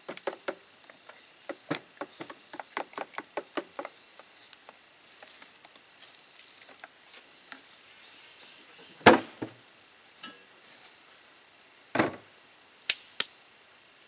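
A utensil clinking against a metal mixing bowl as a pumpkin and egg custard mix is beaten: quick clicks, about three or four a second, for the first few seconds, then slower strokes with a few louder knocks in the second half. A faint steady high insect drone runs underneath.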